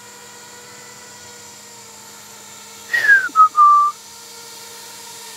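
A person whistles one short note about three seconds in, sliding down in pitch and then holding a lower pitch briefly. Under it runs a faint steady hum.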